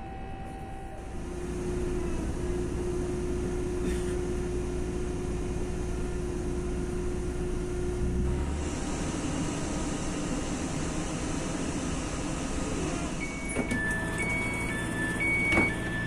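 Tram-train rolling to a stop, its steady electric drive whine and running rumble dying away about halfway through. Near the end a door signal beeps in two alternating tones, with a knock or two as the doors open.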